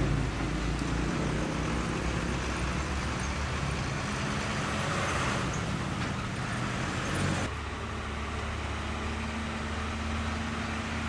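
Road traffic noise as a heavy tractor-trailer passes close by, with engine and tyre noise. About seven and a half seconds in it changes abruptly to the steady low hum of a UD Quester truck's diesel engine moving slowly.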